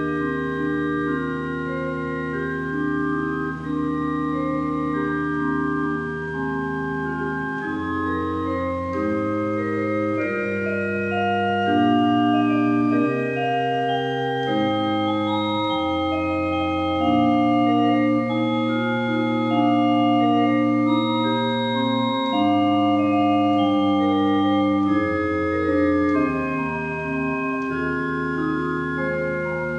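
Pipe organ playing sustained chords over a held bass line, the chords changing every second or two.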